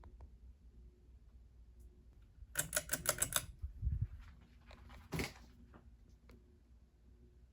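Ceiling fan pull chain and switch clicking: a quick rattle of about eight metallic clicks, a dull thump, then one more sharp click a couple of seconds later.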